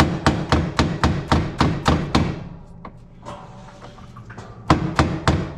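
Hammer striking a GE washing machine's clutch in a quick run of sharp metal taps, about four or five a second, stopping for a couple of seconds and starting again near the end: knocking the tightly seated clutch loose from its shaft.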